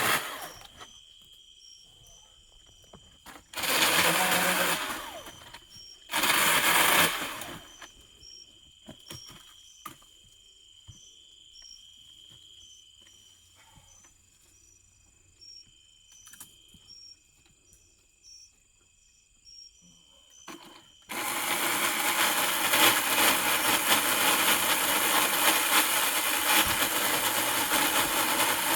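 Cordless electric pole saw (Milwaukee) in two short bursts about 4 and 6.5 seconds in, then, from about 21 seconds in, running steadily as its chain cuts into a hackberry trunk. The chain is chattery from a nick taken on high-tensile wire.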